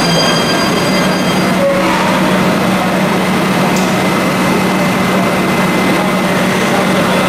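Athens Metro train standing at an underground platform, its onboard equipment giving a steady hum over an even rush of air. A high electric whine from the train stops about a second and a half in, followed by a brief click.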